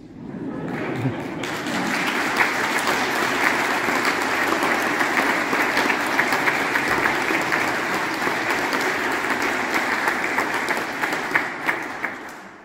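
Congregation applauding: many hands clapping, swelling over the first second or two, holding steady, and dying away near the end.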